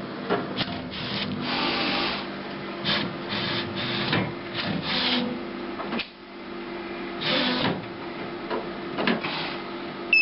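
HP DesignJet Z3200 large-format printer drawing a roll of paper in after loading. A steady motor hum runs under irregular whirring and paper-rubbing passes, with a sharp click about six seconds in.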